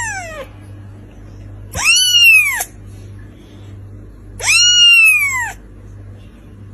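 A cat giving long, loud meows about two seconds apart, each rising and then falling in pitch.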